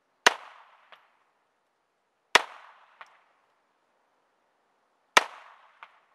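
Three shots from a Smith & Wesson 22A-1 semi-automatic .22 LR pistol, about two and three seconds apart, each a sharp crack that dies away quickly, followed about half a second later by a much fainter short click.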